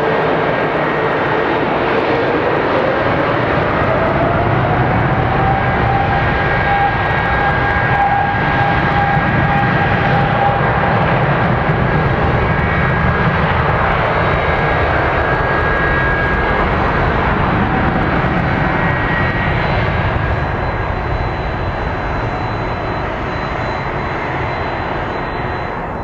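Boeing 777's twin turbofan engines running at takeoff power, with a whine that rises in pitch over the first few seconds as they spool up and then holds steady over the jet noise. The sound eases slightly near the end.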